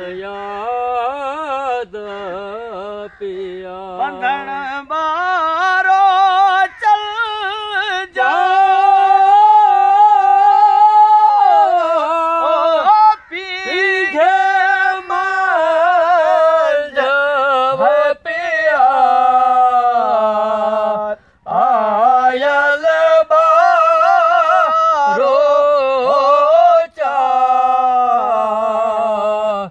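A man singing a traditional Sindhi folk song in long, wavering held notes, with short breaks for breath. A lower steady tone sounds beneath the voice for the first few seconds.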